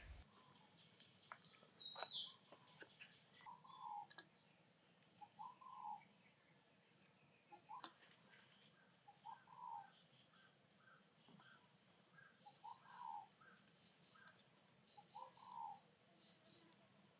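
Outdoor insects, crickets or cicadas, keeping up a steady high-pitched buzz that drops in level about halfway through, with a short bird-like call repeating about every one and a half seconds.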